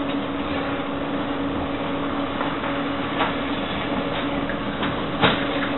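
A steady low electrical hum over an even hiss, with two brief clicks or taps, one about three seconds in and one near the end.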